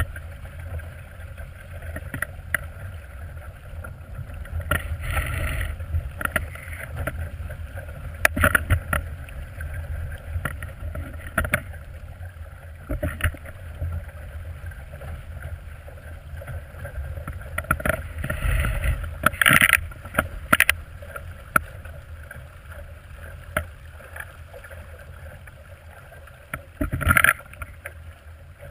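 Water splashing and slapping against the hull of a small plywood sailboat under sail, with a steady low rumble of wind on the microphone and scattered sharp knocks and splashes, the loudest a cluster about two-thirds through and another near the end.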